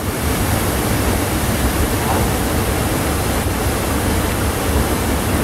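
Waterfall: water pouring down a steep, mossy rock face, a steady, loud, even rush of water.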